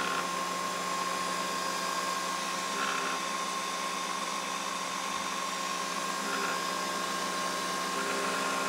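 Coffee machine brewing: a steady whirring hum with a thin, steady whine as coffee streams into a mug.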